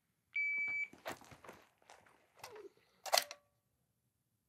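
An electronic shot-timer beep starts the timed string, followed by soft clicks and rustling, and a single sharp knock about three seconds in.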